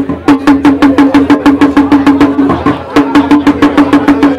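A pitched drum struck with sticks in a fast, steady rhythm of about seven sharp strokes a second. The drum tone breaks off briefly a little before three seconds in, then resumes.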